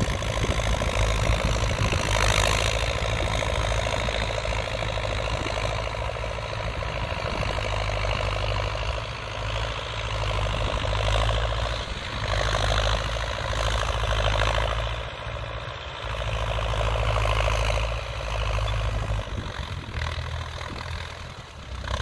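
Old Belarus MTZ tractor's diesel engine running steadily under load, driving a rear-mounted rotary tiller through the soil. A rough, rushing noise rises and falls over it every few seconds.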